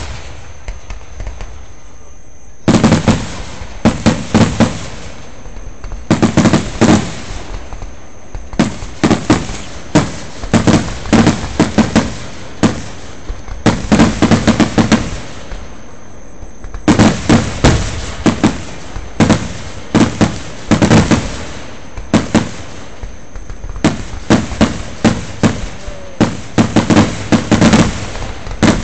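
Aerial firework shells bursting in rapid volleys of sharp, very loud bangs, bunched in clusters with short lulls between them; the first volley starts about two and a half seconds in.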